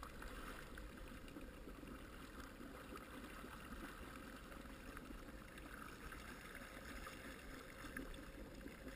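Jet ski running slowly under tow load, a faint steady engine drone with water washing.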